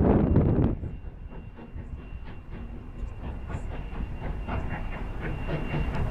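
Virginia & Truckee No. 29, a 2-8-0 steam locomotive, working upgrade at a distance, with a quick even beat of exhaust chuffs, about three a second, and a faint steady high tone above it. Wind buffets the microphone for the first second, then drops away.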